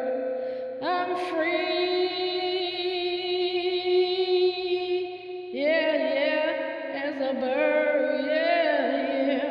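Wordless singing in long held notes with a wavering vibrato, over a steadier lower sustained note; the notes break off and start again about a second in and again about five and a half seconds in.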